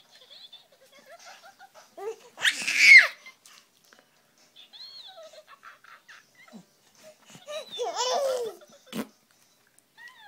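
A five-month-old baby squealing and babbling, with a loud high-pitched squeal about two and a half seconds in and another long gliding cry-like squeal near the eighth second, between softer coos.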